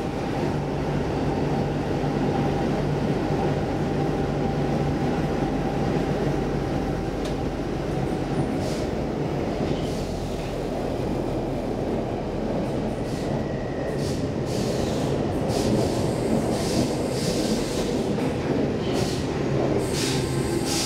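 Stockholm Metro C14 train running through a tunnel, heard from inside the carriage: a steady rumble of wheels on rails. In the second half come brief high-pitched squeals from the wheels.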